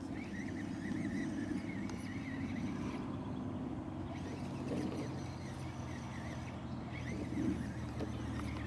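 Radio-controlled FTX Outback crawler's electric motor and geared drivetrain running as it drives over rough ground, with a faint whine that wavers up and down in pitch and comes and goes.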